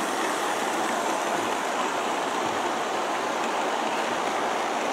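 G-scale model train's diesel locomotives and freight cars rolling along the track close by, a steady even rushing noise.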